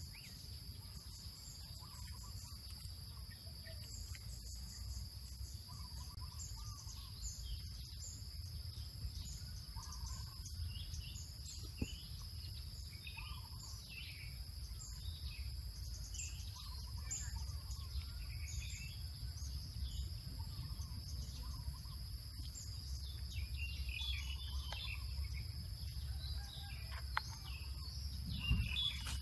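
Outdoor ambience: a steady high-pitched drone of insects, with scattered short bird chirps over a low rumble.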